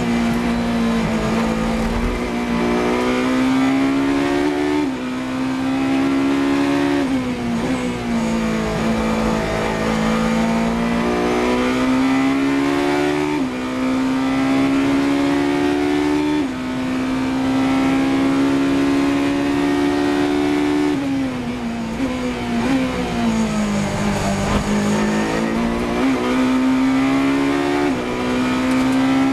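The Ferrari 458 Italia GT3's V8 at racing speed, heard from inside the cockpit. It revs up at full throttle and drops sharply in pitch at each quick upshift, about five times. Partway through, its pitch falls as the car brakes and changes down.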